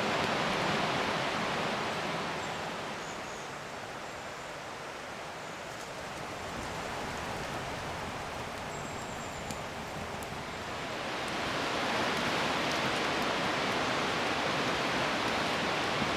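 Steady rushing noise of rain falling in the forest, which drops back a few seconds in and swells up again after about eleven seconds.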